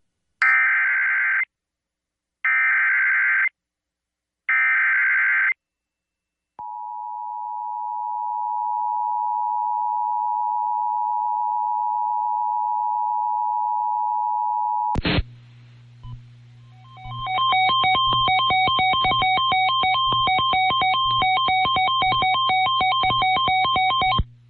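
Emergency Alert System header: three screeching bursts of SAME data tones, about a second each, then the steady two-tone attention signal held for about eight seconds. After a click, a rapidly pulsing electronic tone pattern at several pitches over a low hum runs for about seven seconds and cuts off abruptly.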